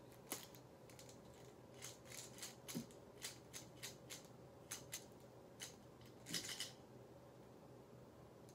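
Faint clicks and crinkles of a small medicine package being handled: a dozen or so scattered ticks, with a short crackling cluster about six and a half seconds in.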